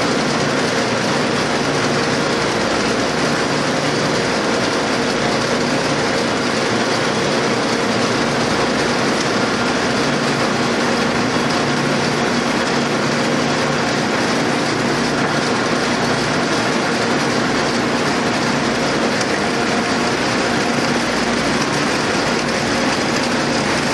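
Factory machinery, a bank of bobbin-winding machines winding plastic tape, running with a steady, loud mechanical noise and a faint low hum.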